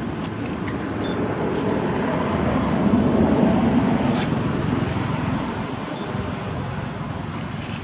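Outdoor ambience: a steady high-pitched insect drone over a low rumbling noise that grows louder about three seconds in and then fades back.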